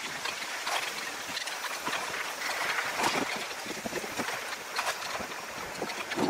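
Bicycle rolling fast over a bumpy dirt forest track: a steady rush of tyre noise with irregular rattles and knocks as the bike jolts over the ground.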